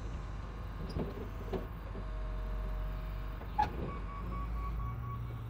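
Wheel loader's engine running steadily under load as its forks lift a steel dump bed off a truck chassis, with a few short metal clunks and a thin steady whine in the second half.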